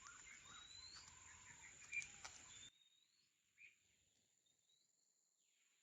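Faint bird chirps, short rising calls repeated every second or two, over a steady high thin tone. The background hiss drops away abruptly about three seconds in.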